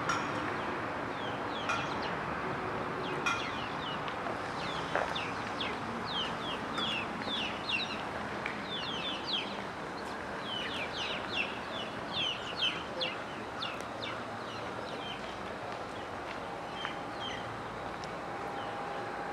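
Birds chirping: a long run of quick, high, falling chirps, thickest in the middle stretch and thinning out toward the end, over steady outdoor background noise.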